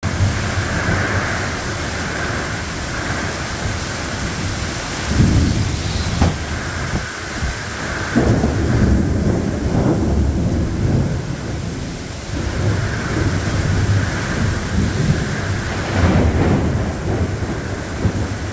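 Severe thunderstorm: heavy rain falls in a steady hiss, and thunder rumbles up several times, about five seconds in, around eight seconds and again near the end.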